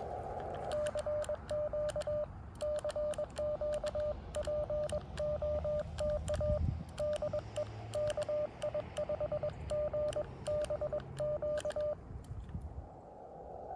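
Morse code sidetone from a Xiegu X6100 transceiver: one steady mid-pitched tone keyed on and off in dots and dashes for about eleven seconds, with sharp clicks along with the keying. The receiver's narrow-filtered hiss is heard at the start, drops out while the code is sent, and returns near the end.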